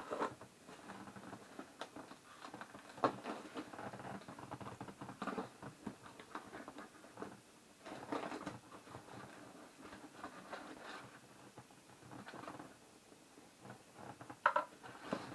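Packing tape on a cardboard box being slit with a folding knife and peeled off, the cardboard scraping and rustling in irregular scratches and small clicks as the flaps are pulled open.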